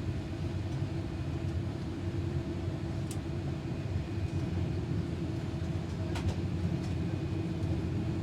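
Steady low rumble of cabin noise inside a Boeing 787-8 as it pulls into its gate, with a steady hum and a couple of faint clicks.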